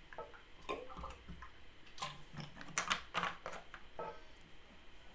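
Faint mouth and breath noises close to a microphone: scattered soft clicks and short breathy hisses, over a low steady hum.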